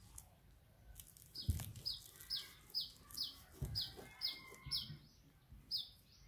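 A small bird calling a short, high, falling chirp over and over, about two or three a second, starting a little over a second in, with a short break near the five-second mark. Two dull thumps come under it, the first of them the loudest sound.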